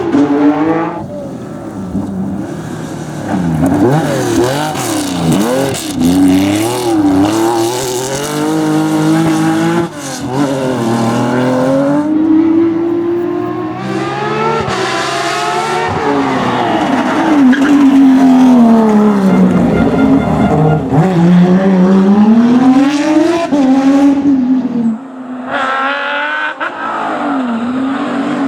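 Porsche race car engines revving hard, their pitch climbing and dropping again and again with throttle and gear changes, in several short passes cut together.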